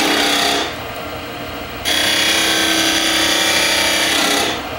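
Skew chisel cutting into cocobolo spinning on a wood lathe, making V cuts to part the piece off its faceplate: a loud cutting noise over the lathe's steady hum. The cut stops about half a second in and resumes about two seconds in for some two and a half seconds.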